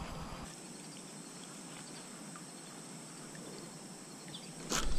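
Quiet outdoor creek ambience with a steady, high-pitched insect drone. A sudden thump near the end.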